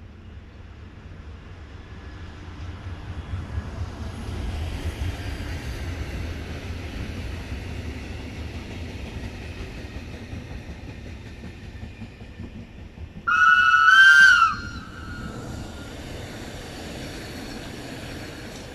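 Train rumble that swells over the first few seconds and holds, then one loud horn blast from a Rhaetian Railway electric multiple unit lasting about a second and a half, the loudest sound, followed by the train's steady running noise as it passes close by.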